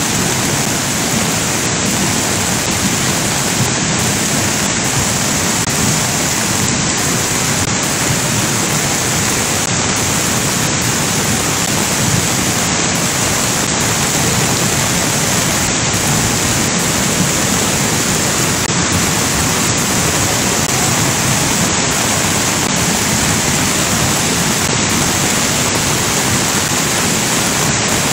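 Floodwater rushing down a street in a fast torrent: a loud, unbroken, steady rush of water.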